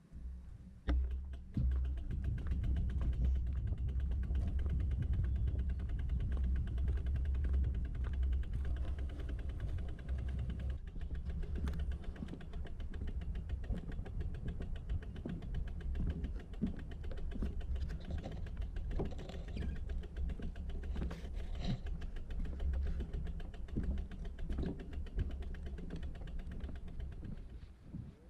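Riding a bicycle: a steady low rumble of wind and road on the microphone, with many small rattling and creaking clicks.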